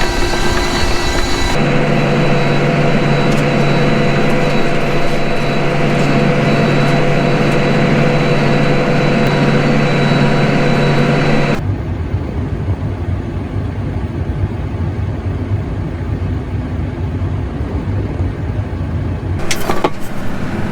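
Tractor's diesel engine running steadily, with an even engine drone whose tone and loudness change abruptly twice, about a second and a half in and again about eleven seconds in. A few sharp clicks come near the end.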